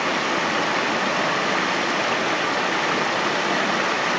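Creek water rushing steadily over granite slabs and small cascades.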